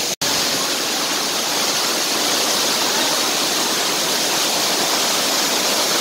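Waterfall: a steady rush of falling water, with a momentary break just after the start.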